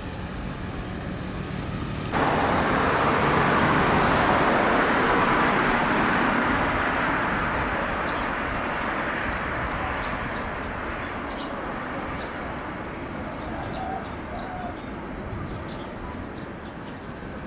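Jet aircraft engine noise: a low rumble at first, then about two seconds in a loud rushing jet noise sets in suddenly and slowly fades away.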